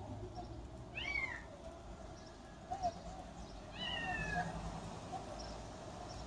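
A kitten with a piece of plastic stuck on its head meowing twice: a short high meow about a second in and a longer, slowly falling meow around four seconds in.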